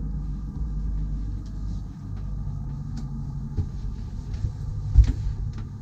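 Steady low rumble with a faint hum over it, a few light clicks, and a sharp thump about five seconds in.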